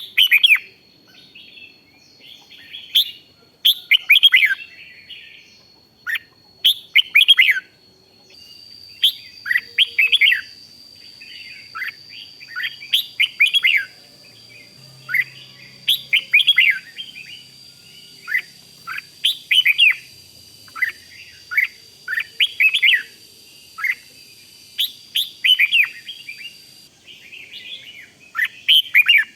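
Red-whiskered bulbul singing short, bright, warbling phrases, one every second or two with brief pauses between. A thin steady high tone runs underneath.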